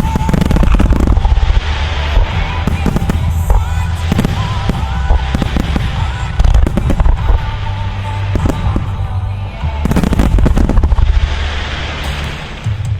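A music fireworks show: fireworks bursting in dense volleys of bangs and crackle over a heavy low rumble, heaviest near the start and again about ten seconds in, with music playing underneath.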